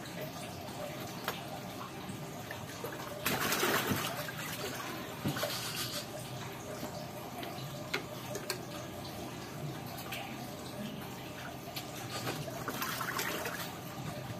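Water trickling steadily, with two louder surges of noise about three seconds in and again near the end, and a few light clicks.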